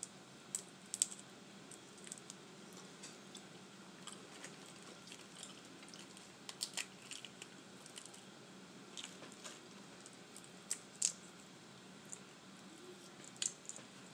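Sauce-soaked boiled crawfish being cracked, peeled and eaten by hand, close to the microphone: scattered wet squishes, small shell cracks and clicks, with the sharpest snaps about a second in and around seven and eleven seconds in.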